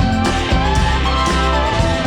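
Background music: a guitar-led song with a steady beat and a wavering melody line.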